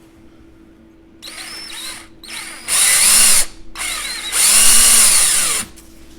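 Electric drill running in reverse with a left-hand drill bit, in three trigger bursts, the first lighter and the next two loud, its motor speed rising and falling. It is drilling into a broken screw so that the left-hand bit will catch it and back it out.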